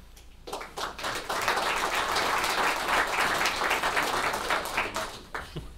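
Audience applauding: a few scattered claps at first, building to steady applause for about four seconds, then dying away near the end.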